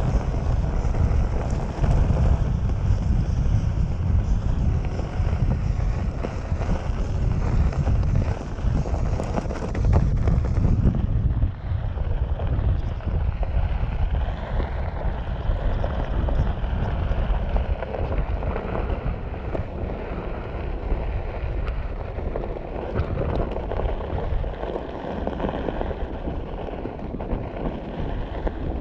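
Wind buffeting the microphone over the steady rumble and crunch of a Onewheel's tyre rolling along a desert gravel trail. The sound turns duller about eleven seconds in.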